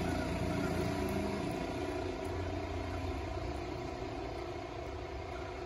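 A motor engine running steadily, its low hum slowly fading.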